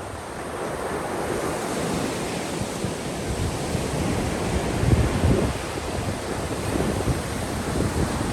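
Sea waves breaking and washing on a sandy beach, in a steady wash with a louder surge about five seconds in, and some wind buffeting the microphone.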